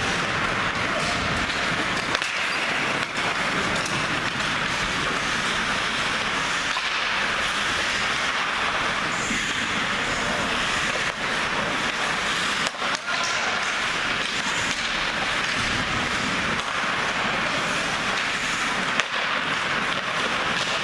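Ice hockey play: a steady hiss of skates scraping and carving the ice, with a few sharp knocks of stick, puck or boards scattered through it.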